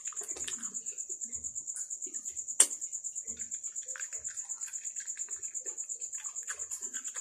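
Soft chewing and wet mouth sounds of a person eating ripe jackfruit bulbs, with one sharp click about two and a half seconds in. A steady high-pitched pulsing tone runs underneath.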